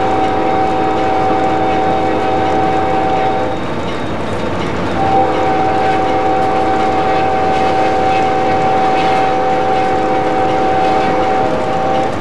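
Amtrak P40 locomotive's air horn, heard from inside the cab over the locomotive's running noise. One long blast ends a few seconds in, and after a pause a second long blast of about six seconds follows, then a short one near the end. This is the long-long-short-long warning sounded for a grade crossing.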